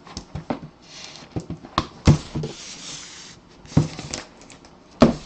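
Cardboard box being handled on a table: a series of knocks and taps, with scraping and rustling in between.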